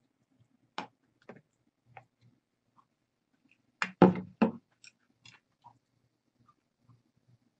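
Close-miked eating sounds: small sips and wet mouth clicks, then chewing. About four seconds in there is a short cluster of loud, sharp tableware clatters as a small bowl and chopsticks are put down.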